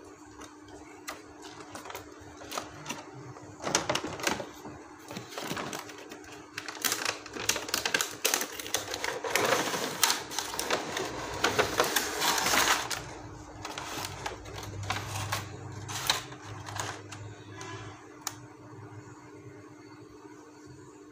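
Cardboard box and clear plastic inner tray being handled: rustling, scraping and clicking. The sounds are busiest and loudest in the middle stretch, as the tray is slid out of the box, and ease off towards the end.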